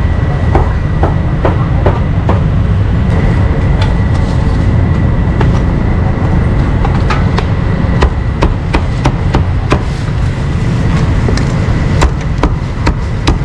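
Cleaver chopping meat on a block: a run of sharp, irregular knocks that come faster in the second half, over a steady low rumble.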